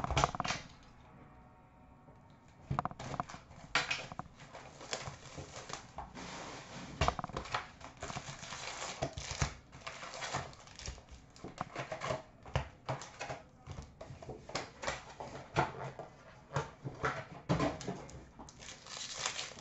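Foil packs and a box of 2013-14 Upper Deck SP Authentic hockey cards being opened by hand: irregular crinkling, tearing and clicking of wrappers and cards.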